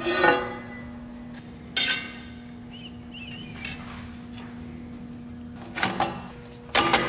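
Stainless steel header tubing clinking and clattering against a steel welding table as the runners and collector are handled and fitted together: four short bursts of metal knocks, about two seconds in and twice near the end. A steady low hum sits under them.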